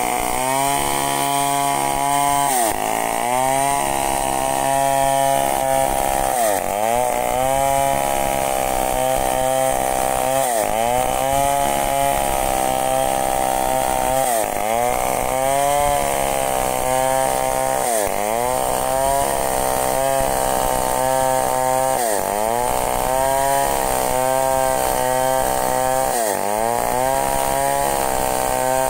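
Two-stroke chainsaw running at full throttle while ripping a log lengthwise along the grain. Its pitch dips under load and climbs back about every four seconds as the chain bites into the wood.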